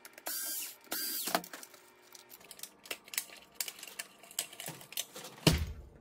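Small cordless electric screwdriver running in two short bursts of about half a second each, backing screws out of a Roomba's plastic chassis. Then come scattered clicks and rattles of plastic parts being handled, and a knock near the end.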